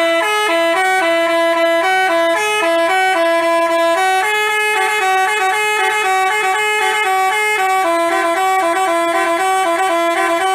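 A telolet basuri musical bus horn playing a quick melody of short, stepping notes, loud and unbroken.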